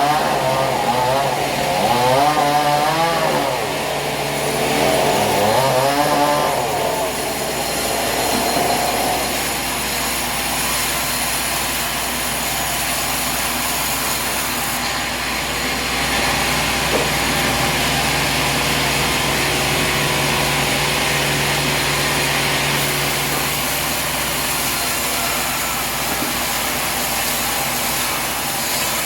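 Sawmill saw running and cutting through a log. Its pitch wavers up and down for the first several seconds, then settles into a steadier machine sound for the rest.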